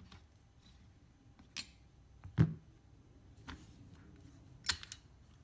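Aluminium AR-15 buttstock and tools being handled: a few separate clicks and knocks, the loudest a dull knock about halfway through.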